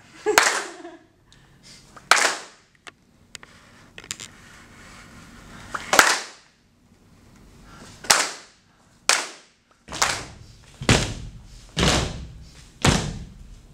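A group of choir singers clapping in unison, single sharp claps given on the conductor's sign. Nine claps, spaced out at first, then about one a second over the last few seconds, each with a short room echo.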